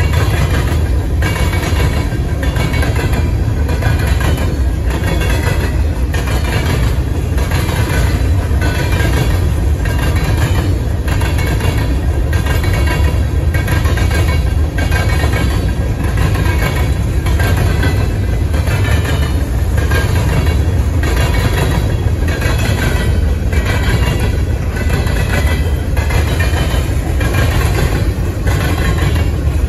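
Covered hopper cars of a long freight train rolling past, their wheels making a steady rumble with regular clacks over the rail joints.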